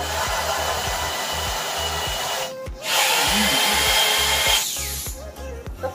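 Corded electric drill running at speed, drilling at an aluminium door frame: one run, a brief pause about two and a half seconds in, then a second, louder run with a steady whine that winds down near the end.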